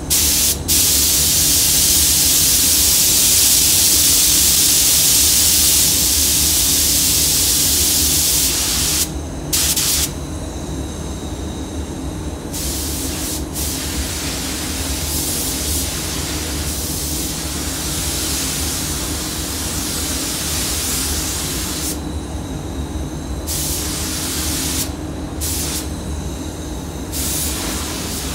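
Compressed-air paint spray gun laying clearcoat: a loud hiss that runs without a break for about nine seconds, then starts and stops in bursts as the trigger is pulled and released, over the steady hum of the spray booth's air system.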